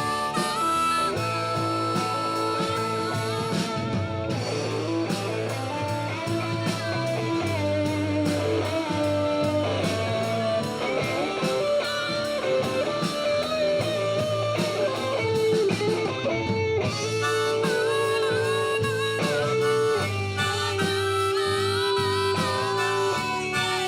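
Live band playing an instrumental break led by guitar, in a bluesy style, over a steady bass line.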